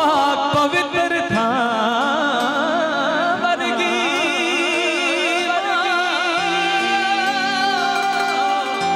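Live devotional song: a male singer holds long, wordless notes with heavy vibrato over electronic keyboard accompaniment, with a few drum hits in the first second or so.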